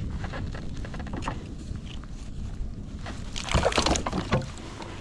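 Water sloshing around a kayak with low wind rumble on the microphone, then a short burst of splashing and clattering about three and a half seconds in as a caught trout is handled on board.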